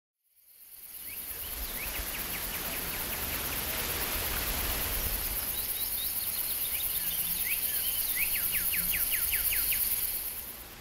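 Forest ambience: a steady, high-pitched insect chorus with a songbird singing a quick run of short, falling whistled notes, once near the start and again near the end. The ambience fades in at the start and fades out at the end.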